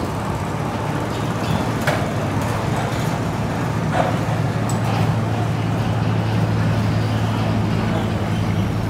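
Motorboat engine running at a steady low hum, a little stronger from about five seconds in, with a couple of light knocks.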